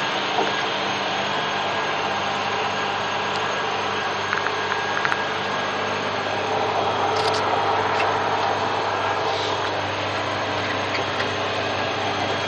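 Caterpillar D10T bulldozer's diesel engine running steadily, heard from inside the closed cab, with a few light clicks around the middle.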